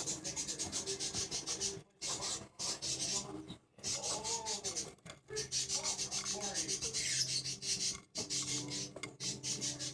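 Pet hedgehog chewing cockroaches: fast runs of crisp crunching as it bites through the insects' hard shells, broken by a few short pauses.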